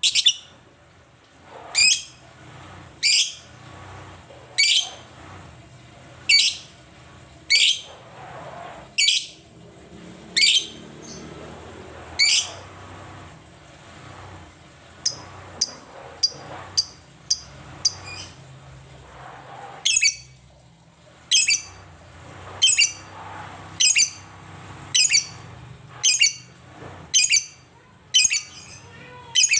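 Lovebird giving short, sharp, high-pitched chirps, about one every second and a half, with a quicker run of shorter chirps about halfway through.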